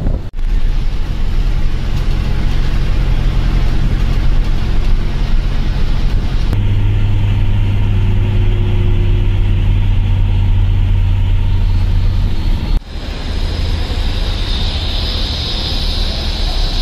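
AC sleeper bus running on the highway, heard from inside the cabin: a steady low engine hum over road noise. Near the end the sound changes to a steadier engine idle with a high hiss.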